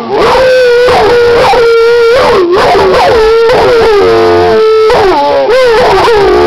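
A dog howling in long, sliding, wavering howls, overlapped by a second howl held on a steadier pitch, a person howling along with it.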